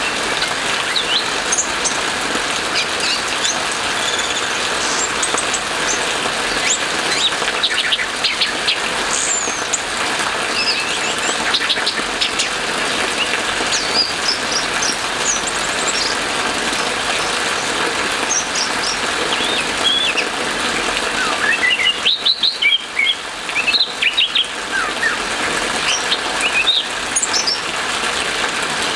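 Orange-headed thrush singing a varied, scattered song of short whistled notes, chirps and quick ticking runs. The song sounds over a steady hiss of rain.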